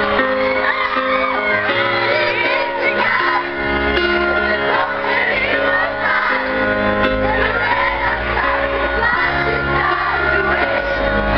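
Live pop band music with long held chords, and a deep bass part coming in a few seconds in. Many audience voices shriek and sing along over it in a large hall.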